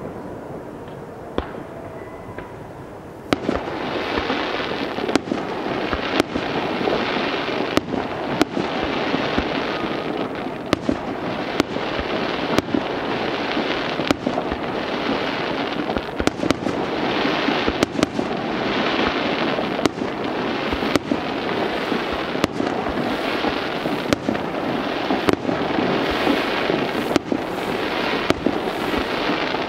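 Aerial fireworks display. After about three seconds a dense, continuous hiss and crackle sets in, swelling and fading about once a second, with many sharp bangs of shell bursts scattered through it.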